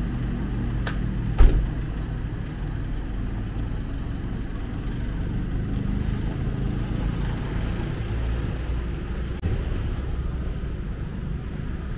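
Steady low rumble of vehicle engine and road noise, with two sharp knocks about a second in, the second one the loudest.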